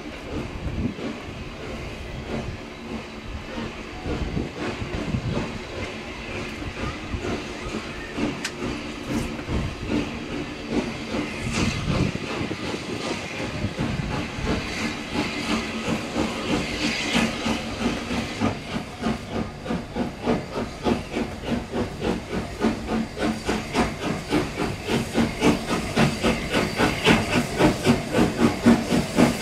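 Three-cylinder SR Maunsell 'Schools' class 4-4-0 steam locomotive no. 925 'Cheltenham' pulling away with its train, with a steady hiss of steam. In the second half its exhaust beats come through, quickening and growing louder as it nears and passes.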